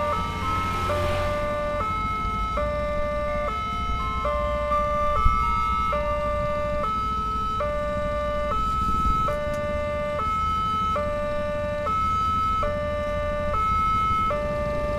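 Railway level-crossing electronic warning alarm sounding continuously, alternating between two tones about once a second, signalling that a train is approaching and the barriers are down. Under it, motorcycle engines idle, and one passes close by about a second in.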